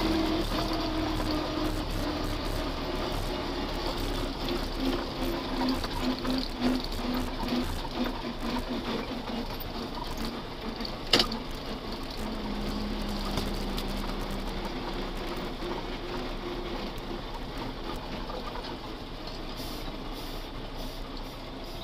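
Belarus MTZ 892.2 tractor's diesel engine, fitted with a TKP 6 turbocharger, running steadily while driving, heard from inside the cab, its note shifting in pitch. A single sharp click about eleven seconds in.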